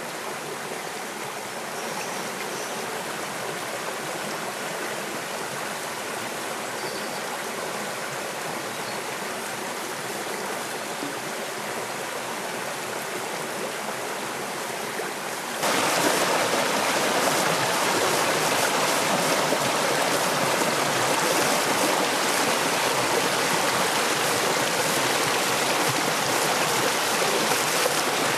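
Shallow rocky stream running over stones, a steady rush of water. About halfway through it jumps suddenly louder and brighter, water pouring and splashing over a rock close up.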